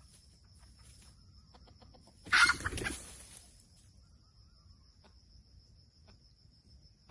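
Red junglefowl giving one loud call a little over two seconds in, lasting about a second.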